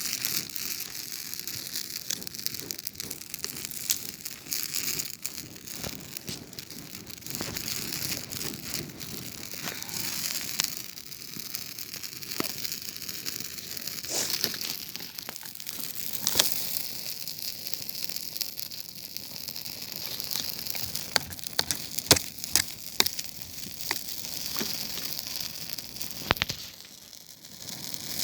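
Campfire burning: wood crackling, with sharp irregular pops over a steady hiss.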